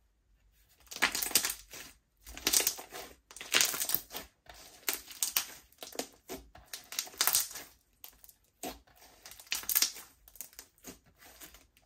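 Pink slime being pressed and squeezed by hand, giving repeated bursts of wet, sticky crackling and popping, roughly one a second.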